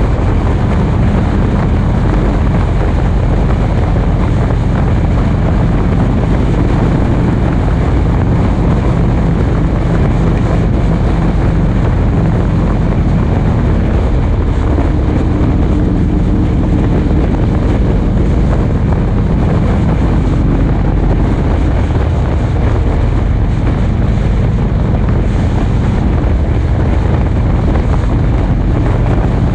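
Engine of a moving road vehicle running steadily at cruising speed, under heavy wind rushing over the microphone.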